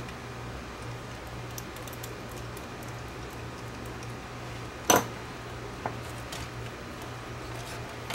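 Light clicks and taps of a screwdriver and hands working on a cassette deck's metal chassis and mechanism, with one sharp metallic click about five seconds in and a smaller one a second later, over a steady low hum.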